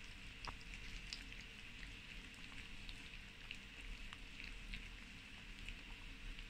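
A Chihuahua chewing small pieces of raw carrot: faint, irregular crisp crunches and ticks, scattered through, over a low steady room hum.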